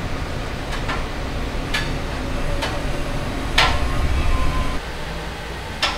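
A steady low hum with a series of sharp clicks and knocks, roughly one a second; the loudest, about halfway through, rings briefly afterward.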